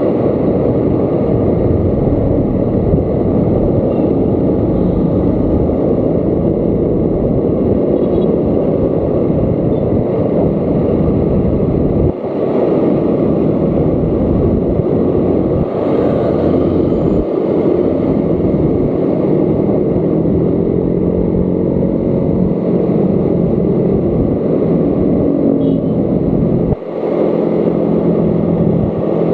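Motor scooter riding in city traffic: its small engine hums under a loud, steady rush of wind on the microphone. The noise dips briefly a few times, and the engine's hum stands out more clearly near the end.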